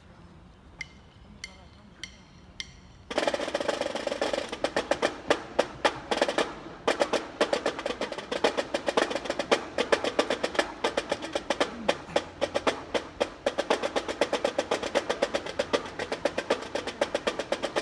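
Marching drum corps of snare drums and a bass drum: four evenly spaced sharp stick clicks counting in, then from about three seconds in a continuous snare-drum cadence of rolls and rapid rhythmic strikes.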